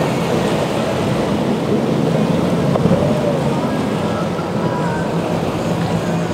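Boat engines running with the wash of waves and wind buffeting the microphone, a steady low drone under a rushing hiss.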